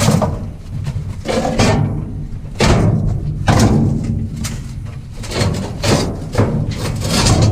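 Scrap metal being handled and tossed: a run of irregular clanks and thuds, about one or two a second, some ringing briefly.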